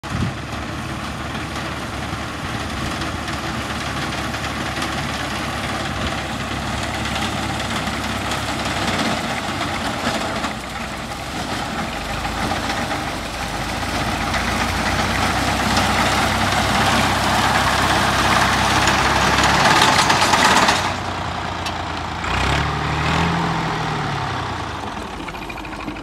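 Tractor engine running under load while its mounted reaper cuts standing wheat, growing louder as it comes closer and dropping away suddenly about 21 seconds in. Near the end the engine's pitch briefly rises and falls back.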